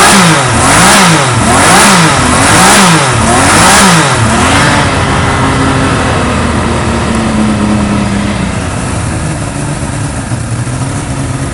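Kawasaki Z1300 inline-six, supercharged with a belt-driven Eaton roots compressor from a Mercedes SLK, revved in quick even blips about once a second, around five times. About five seconds in it drops back and settles into a steady idle.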